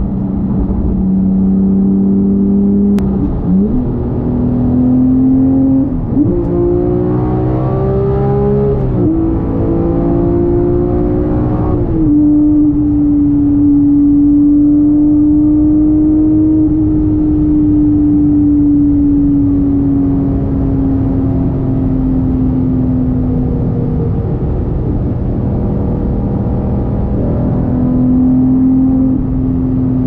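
Porsche 911 GT3 Touring's (991.2) naturally aspirated 4.0-litre flat-six on the road, over steady road noise. The engine note climbs in steps through several gear changes over the first twelve seconds or so, then holds a long steady note that slowly falls, with a short rise near the end.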